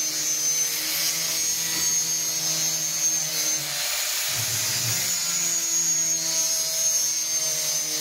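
Steady whine of a handheld power saw motor cutting plywood, with a short break and a rougher, lower rasp about four seconds in.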